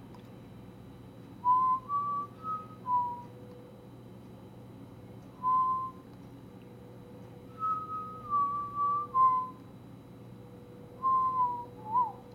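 A person whistling a tune in four short phrases of clear stepped notes, with pauses between them and a quick pitch flick at the end of the last phrase, over a faint steady hum.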